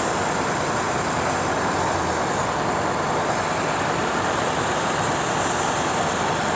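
Steady rushing noise of a large truck running close by, built up just before and holding level.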